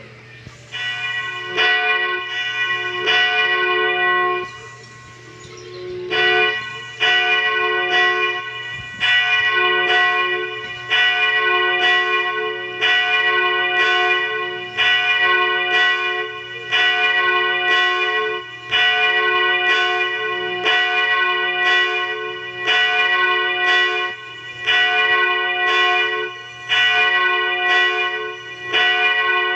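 Church bell rung by rope, struck about once a second, each stroke ringing on with a bright cluster of tones. There is a short pause about five seconds in.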